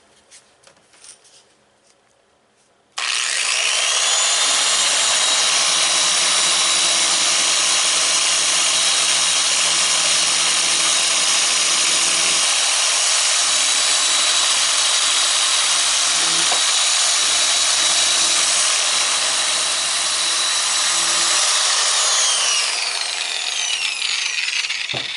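Dual-action (DA) sander spinning up about three seconds in with a rising whine, then running steadily while sanding out a scrape on a painted trunk panel, and winding down with a falling whine near the end.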